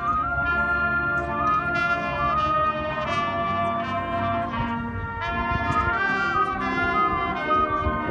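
A marching band's brass section plays a loud, sustained melody of held notes, with percussion underneath.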